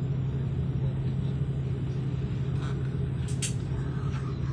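Airliner cabin noise: a steady low drone of the engines and air system, with one short click about three and a half seconds in.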